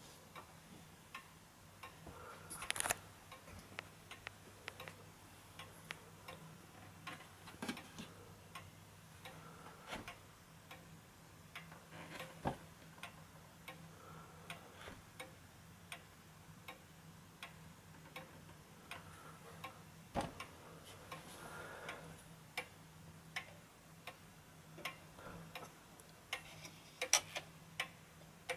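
Two-weight Vienna pendulum wall clock ticking steadily, its escapement giving a run of light, even ticks. A few louder knocks break in where the case is handled.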